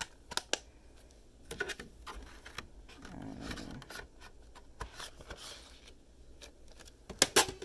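Handling of plastic Blu-ray cases and packaging: scattered sharp plastic clicks and light rubbing, with a quick run of louder clicks near the end.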